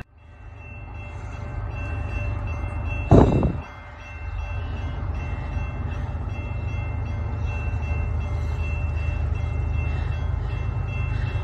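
Steady low rumble of an approaching freight train that builds up over the first couple of seconds, with faint steady high tones above it and a brief loud thump about three seconds in.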